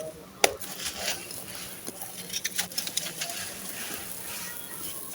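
Dry sand-cement chunks crumbling and crunching: a steady run of gritty crackles and small snaps, with one sharp crack about half a second in.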